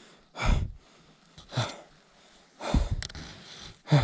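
A person breathing hard close to the microphone: four heavy breaths, about a second apart.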